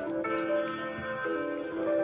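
Background music: a light, plucked-sounding melody with notes changing about every half second.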